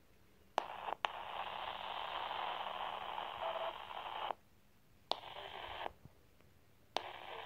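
Handheld ham radio transceiver's speaker bursting into static three times, each burst opening with a sharp click as the squelch breaks. The first burst lasts about four seconds, the second under a second, and the third begins near the end.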